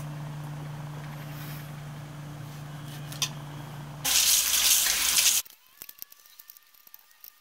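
A steady low hum for about four seconds, then tap water running hard into a sink as an aloe leaf is rinsed under it, lasting about a second and a half and cutting off abruptly. After that come only faint scattered clicks of the leaf being handled on a cutting board.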